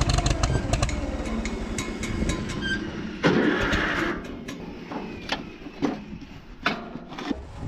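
Farmall M-TA tractor's four-cylinder engine starting and running, with a surge about three seconds in and then falling away. The tractor is running nearly out of fuel.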